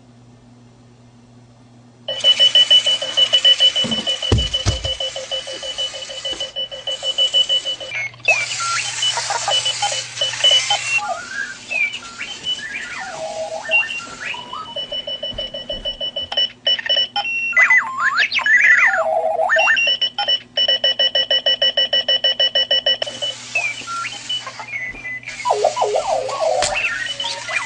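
A runaway alarm clock going off about two seconds in: loud electronic beeping with a held tone and rapid pulses, bursts of hissing noise, and warbling, sweeping chirps that keep changing pattern. A low thump comes a couple of seconds after the alarm starts.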